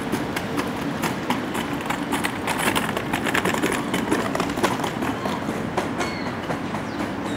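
A Kawasaki-built R68A subway train rolls into the station and slows to a stop, its wheels clacking rapidly over the rail joints. A couple of faint brief squeals come near the end.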